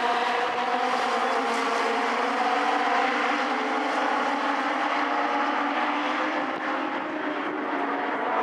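A pack of Legends race cars running hard on a short oval, their Yamaha four-cylinder motorcycle engines at high revs. Several engine notes overlap, dipping slightly, then climbing again as the cars accelerate.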